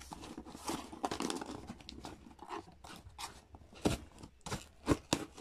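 A taped cardboard box being opened by hand: packing tape and cardboard tearing and scraping, with several sharp clicks in the second half.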